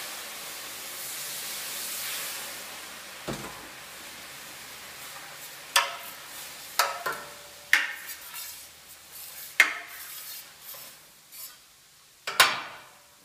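Hot water hissing and sizzling on a still-hot steel griddle plate, fading over the first few seconds. After that comes a scraper worked over the wet steel surface, with about six sharp scrapes and clanks spread over the rest of the time.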